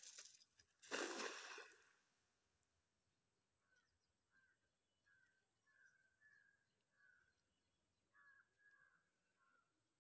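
A thrown cast net lands on pond water about a second in, a brief splash as the weighted net hits the surface. After that there is a faint series of short bird calls in two runs.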